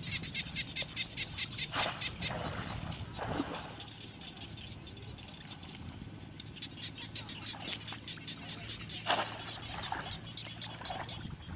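Frogs calling in a fast pulsed trill of about ten pulses a second, which fades in the middle and comes back. A few sharp louder knocks or splashes stand out over it, about two seconds in, three seconds in and near nine seconds.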